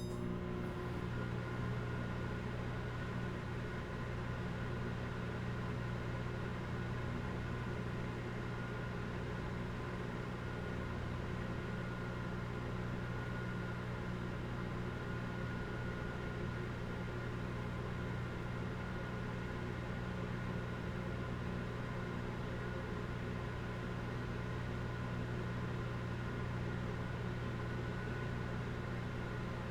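Microwave oven running while heating: a steady low electrical hum over the even rush of its cooling fan.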